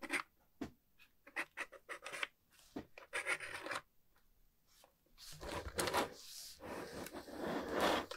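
Plastic toy fishing game being handled: light clicks and taps as gloved fingers work its panel switch, then from about five seconds in a continuous scraping as the plastic board is slid and turned on the table.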